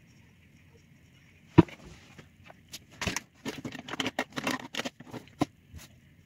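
Close handling noise. A sharp knock comes about one and a half seconds in, then a few seconds of rustling clothing and small clicks and knocks as she settles in front of the camera and picks up a makeup tube.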